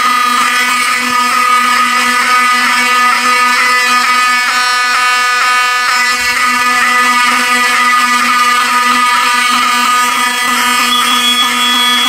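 Wheelock 7002 fire alarm horns sounding a continuous, pretty loud buzzing horn tone with the system in alarm after a pull station was pulled.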